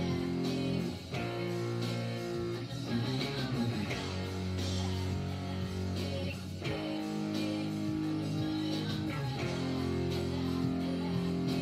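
Squier electric guitar playing held chords that ring out, changing chord about a second in, again near six and a half seconds, and once more past nine seconds.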